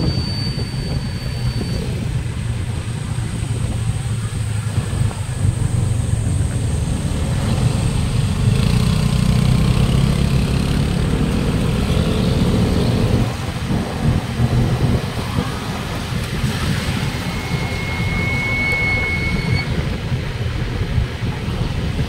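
Motorcycle engine running on the move, with wind and road noise. The engine note rises and grows louder from about eight seconds in, then drops back about thirteen seconds in.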